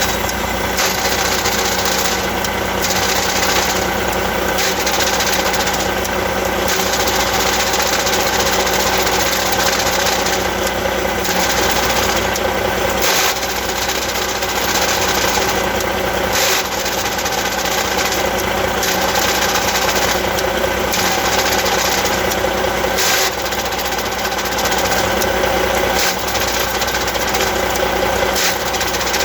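Heavy truck's diesel engine running, with an abnormal mechanical noise from its Eaton Easy Pedal Advantage clutch.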